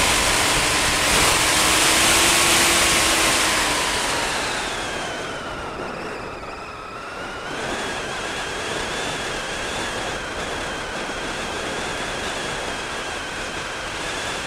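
Wind rushing over the microphone of an aircraft in flight, with a thin motor whine that slowly slides up and down in pitch. Loudest in the first few seconds, it eases off and dips around the middle, then steadies.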